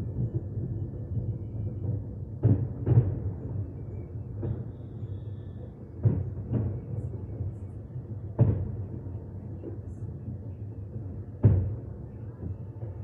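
Fireworks shells bursting overhead: about six deep booms, mostly in close pairs, each with a short echoing tail, over a steady low rumble. The sharpest boom comes near the end.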